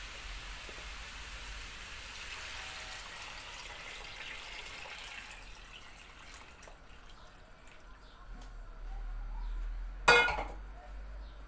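Bean cooking water poured into a hot pot of beans and meat, hissing, the hiss fading after about five seconds. About ten seconds in, one sharp clink rings briefly, the loudest sound.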